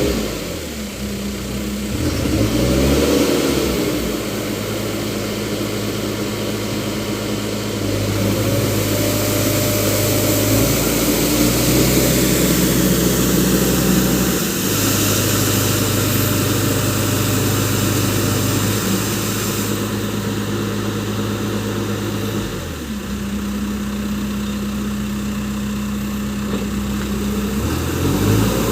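Diesel engine of a Case Super M backhoe loader running, its speed stepping up and down several times, with the pitch sagging and recovering briefly near the start, about three-quarters through and near the end.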